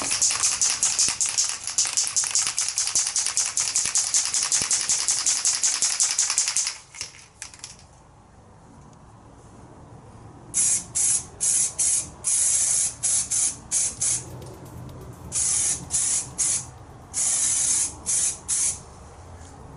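Aerosol spray-paint can being shaken hard, its mixing ball rattling rapidly at about seven knocks a second for roughly the first seven seconds. After a short pause comes a dozen or so short bursts of spray hiss of varying length as paint is sprayed on.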